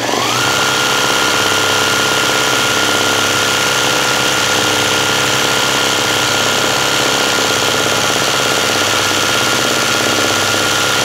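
Sewing machine running at a steady high speed, stitching a zigzag satin fill. The motor winds up in pitch in the first half-second, then holds a steady whine with a fast, even needle clatter.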